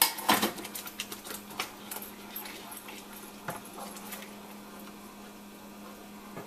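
Metal clank as the lid of a stainless-steel masala dabba spice tin is put back on, then a wooden spoon stirring tomato sauce in a pan, with a few soft knocks that die away about four seconds in. A steady low hum runs underneath.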